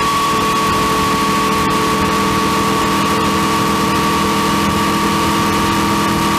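Honda CB500X parallel-twin motorcycle running at a steady speed, with a steady high whine over the drive noise; the noise appeared after the chain and sprocket kit was changed.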